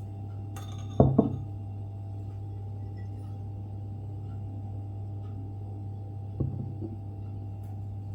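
Steady low mechanical or electrical hum, with a loud knock about a second in and a weaker knock later on.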